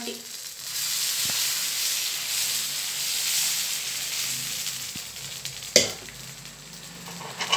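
Adai batter sizzling on a hot black dosa griddle as it is spread out with a ladle. The sizzle eases off after about five seconds, and one sharp knock comes just before six seconds in.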